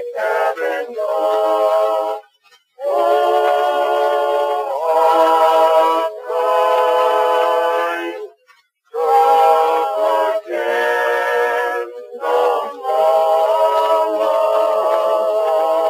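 Vocal quartet singing slow sustained chords in close harmony with no audible accompaniment, in long phrases broken by three short pauses, on an early acoustic phonograph recording with no bass.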